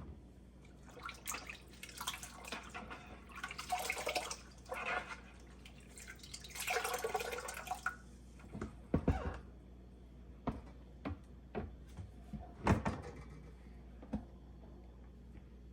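Water splashing and swishing in several short bursts during hand-cleaning of a dishwasher interior, followed by a few sharp knocks.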